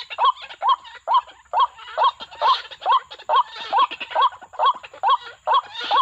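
White-breasted waterhen calling: a steady run of short, repeated call notes, each rising then falling in pitch, about two and a half a second without a break.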